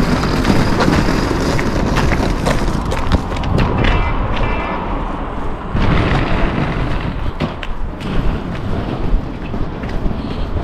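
Wind buffeting the microphone outdoors: a loud, uneven rumble with many thumps, over street noise.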